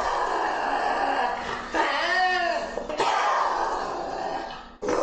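Lynx making harsh, hissy snarling sounds, with one short rising-and-falling yowl about two seconds in.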